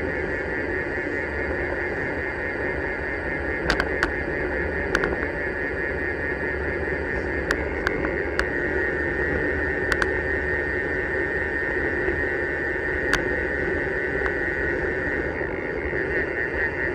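Steady wind and road noise on a bicycle-mounted camera while riding, with a constant high-pitched buzz and a handful of sharp ticks scattered through.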